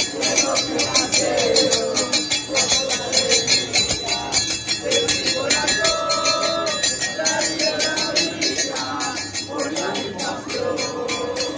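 Group of soccer fans chanting a song in unison, with a jingling percussion keeping a steady beat of about four strikes a second.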